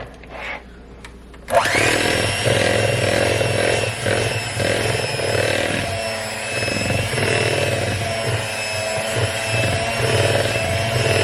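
Electric kitchen mixer switched on about a second and a half in and running steadily with a motor whine, beating cake or muffin batter.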